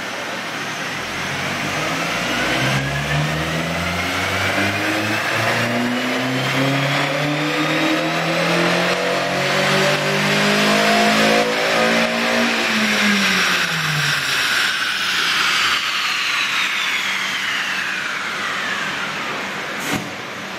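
Honda Civic Si's 2.4-litre four-cylinder engine making a full-throttle dyno pull on a chassis dyno: the revs climb steadily through the range for about eleven seconds, then the throttle comes off and the engine winds down over several seconds. A high whine rises and falls with it.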